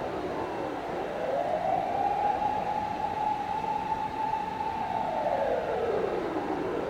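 A siren wailing. Its pitch falls during the first second, climbs back and holds high for about three seconds, then falls slowly again near the end. A steady background rumble sits under it.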